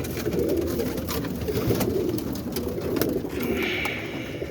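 Many roller pigeons cooing together in a continuous, overlapping murmur, with scattered light clicks and a brief hiss about three and a half seconds in.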